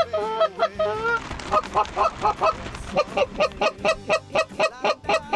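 Canada geese honking: a rapid run of short, pitched calls, several a second, growing denser about three seconds in.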